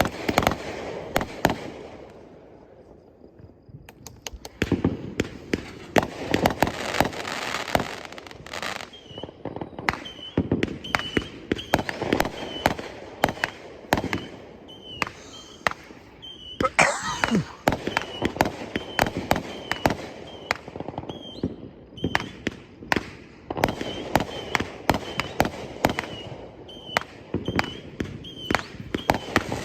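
Fireworks going off in a long run of rapid pops and bangs, with a brief lull a couple of seconds in and a louder burst about halfway through.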